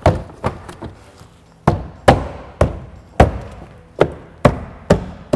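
2009 Honda CR-V interior door trim panel being pushed and struck by hand onto the door, its retaining clips popping into place: a string of about ten sharp knocks, roughly two a second.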